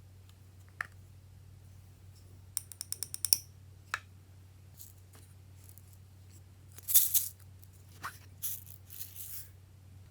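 Small hard pieces rattling into a container during slime mixing: a quick run of about eight sharp clicks a few seconds in, then single clicks and louder rustling scrapes later on, over a steady low hum.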